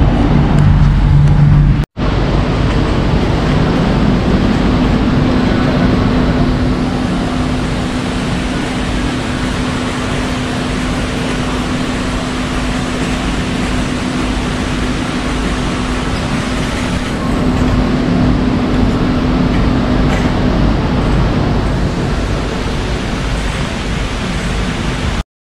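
Car on the road: a steady rush of tyre and road noise with a low hum from the car running under it, broken by a short cut about two seconds in.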